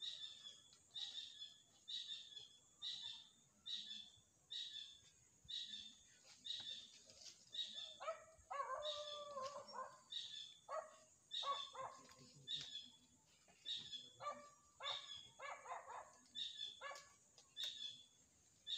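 A dog barking over and over, about two barks a second, with a few lower, longer yelps in the middle.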